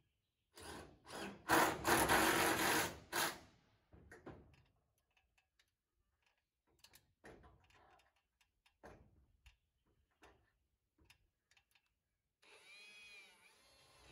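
A cordless drill driving screws into the roof: one loud run of about three seconds near the start, then scattered light knocks, and a second, quieter run of the drill near the end.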